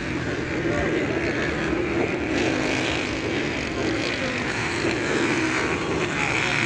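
Motocross motorcycle engines running steadily on the track.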